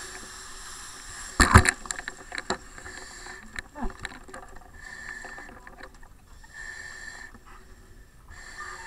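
Firefighter breathing through an SCBA mask regulator, a hiss that comes and goes in a slow rhythm. A sharp burst of knocks and clatter about a second and a half in, then scattered smaller clicks.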